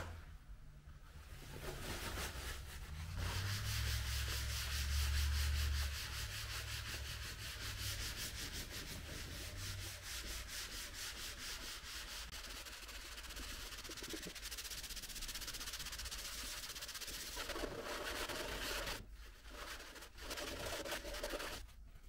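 Wiping down the surface of a computer case with isopropyl alcohol: a dry rubbing sound made of quick, even back-and-forth strokes. There is a low rumble about four to six seconds in, and the rubbing pauses briefly near the end.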